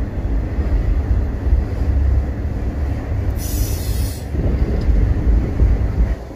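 A long freight train of enclosed autorack cars rolling past with a steady low rumble. A brief high-pitched wheel squeal comes about three and a half seconds in.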